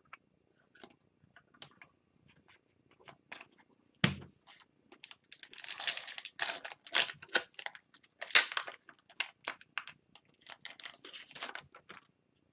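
Foil wrapper of an Upper Deck hockey card pack being torn open and crinkled, with a crackling that comes in many short rips. Before it, light clicks of cards being handled, and a single thump about four seconds in.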